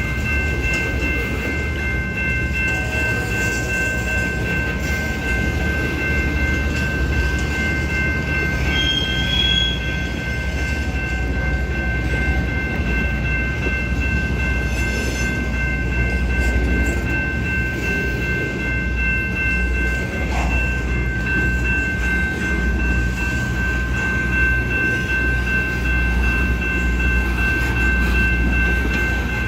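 Union Pacific freight train running, a steady low rumble with a few thin high tones held unchanged throughout.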